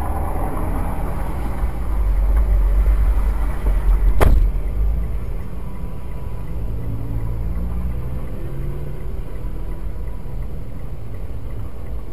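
Low traffic rumble heard from a stopped car. It swells for a couple of seconds as a bus passes close alongside, with a single sharp click about four seconds in.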